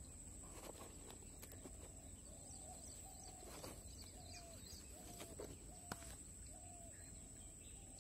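Faint bird calls: a short, low note repeated evenly, a little under twice a second, starting about two seconds in. A thin steady high whine runs underneath, with a few scattered soft clicks.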